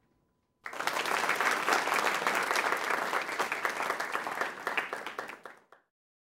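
Audience applauding, starting about half a second in and stopping abruptly near the end.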